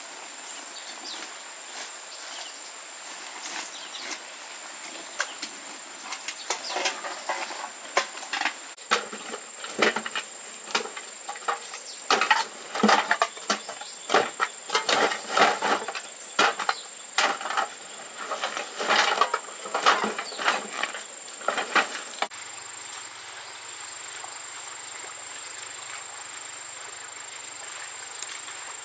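Irregular knocks, cracks and clatter, like wood being handled or snapped, coming thickest through the middle and stopping about three quarters of the way through. A steady high insect drone runs behind them.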